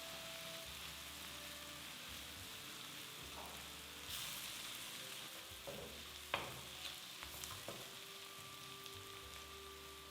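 Food sizzling in a pan with a steady hiss, with a few sharp clicks of a utensil against the pan, the loudest about six seconds in.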